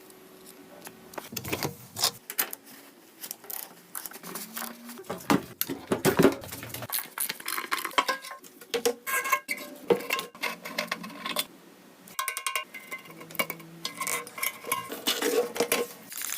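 Metal tools and parts clinking and knocking at an irregular pace, with a few brief ringing tones from struck metal.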